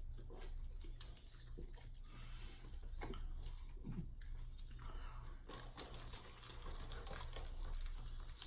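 Close-up eating sounds: chewing with many small wet mouth clicks and some crunching.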